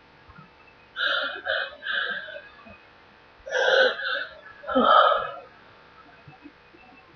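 A woman sneezing in a run of sudden bursts: three quick ones about a second in, then two louder ones about three and a half and five seconds in.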